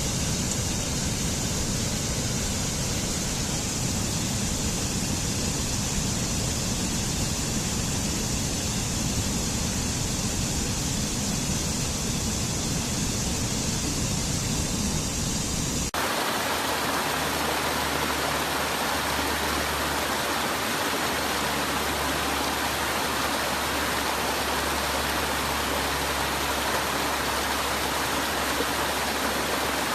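Steady rushing of a waterfall, an even, unbroken wash of falling water. About sixteen seconds in the sound changes abruptly to a brighter rush with less low rumble, as at a splice between two recordings.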